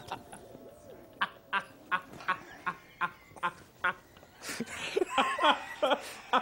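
Short animal calls repeated evenly, about eight of them in under three seconds, followed near the end by a denser tangle of calls.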